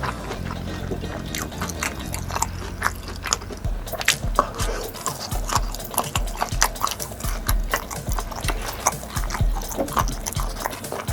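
Close-miked eating sounds: wet chewing, smacking and clicking from a person eating, in short irregular bursts.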